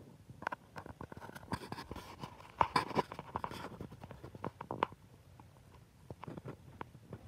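Handling noise of a hand-held phone being carried while filming: scattered clicks, taps and rustling, loudest about three seconds in.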